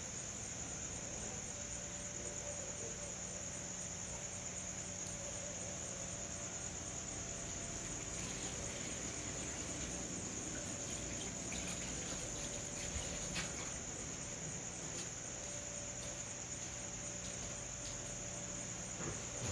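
Crickets trilling steadily in one continuous high-pitched band, with a faint low hum beneath and a few light clicks in the middle.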